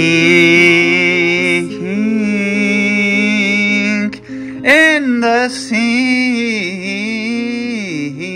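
A woman singing long held notes that bend up and down, accompanied on acoustic guitar, with a brief break in the voice about four seconds in.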